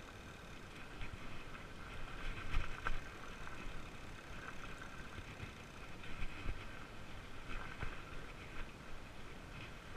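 Fat bike riding over a wet, rutted dirt road: steady rolling noise from the wide tyres, with a few knocks and rattles from the bike over bumps, the loudest about two and a half to three seconds in and again around six and a half and eight seconds.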